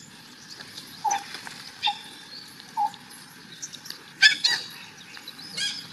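Scattered short, high animal chirps and squeaks: a few small ones in the first three seconds, then a louder squeak about four seconds in and another near the end.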